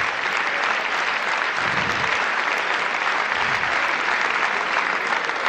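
Live audience applauding, a dense and steady clapping.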